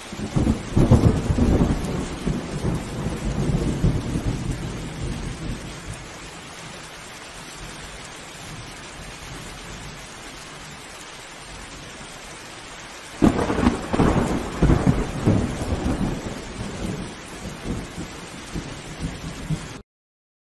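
Steady rain with thunder: a rolling rumble at the start that fades over about five seconds, then a sudden clap about 13 seconds in that rumbles on for several seconds. The sound cuts off suddenly shortly before the end.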